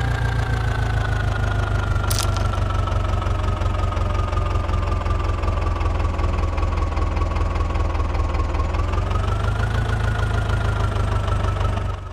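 A small motor running steadily, with a low hum and a whine that sinks slowly and then rises again about nine seconds in. It fades out at the very end.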